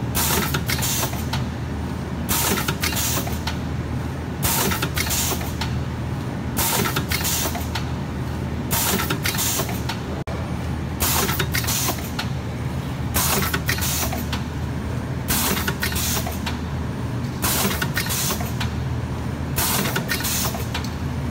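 Pneumatic shaped-sachet form-fill-seal packing machine running: a steady low hum, with short hisses of exhausting compressed air in quick pairs about every two seconds as its air cylinders cycle.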